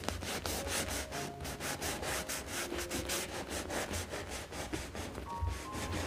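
Kitchen knife sawing back and forth through the hard crust of a loaf of bread: a rapid run of scraping strokes, about six a second.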